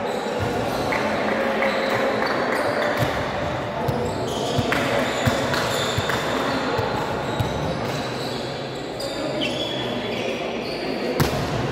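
Volleyballs being struck and bouncing on an indoor court floor during a drill: a string of sharp, irregular impacts over a steady hall background, the loudest near the end.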